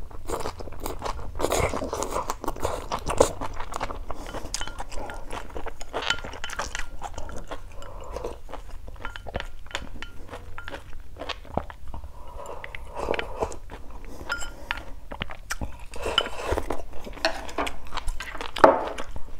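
Close-miked eating: crunchy chewing of bean sprouts and vegetables from a sour soup, with wet slurps and sips of the broth from a bowl.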